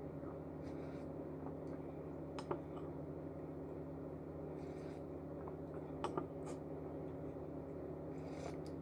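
Steady low room hum with a few short, faint clicks and taps scattered over it, the sharpest about two and a half seconds in and a pair about six seconds in.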